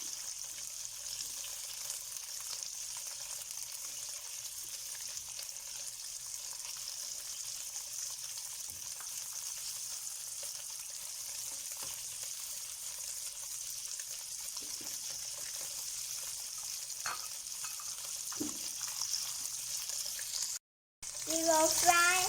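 Tofu pieces frying in hot oil in a pan: a steady sizzle with a few scattered crackles.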